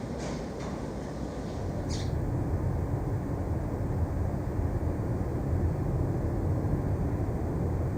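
Urban residential outdoor ambience: a steady low rumble of distant traffic that swells from about two seconds in, with a few short high chirps in the first two seconds.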